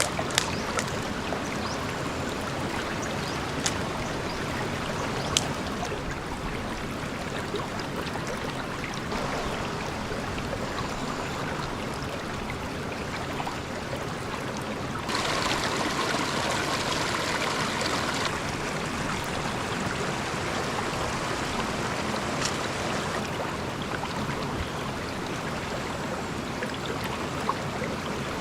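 Stream water flowing steadily, getting louder for several seconds about halfway through, with a few isolated sharp clicks.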